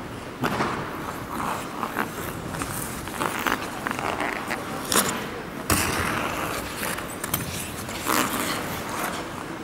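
Figure skate blades carving and scraping across rink ice in uneven swells, with sharp scrapes and knocks now and then, the loudest about five seconds in.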